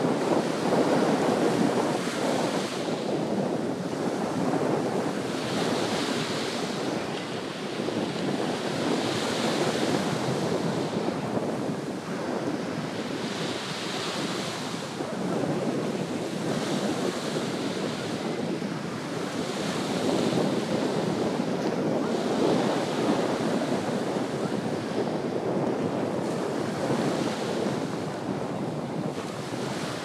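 Small sea waves breaking and washing up a sandy shore, a fresh swash rising every three to four seconds over a steady rush, with wind buffeting the microphone.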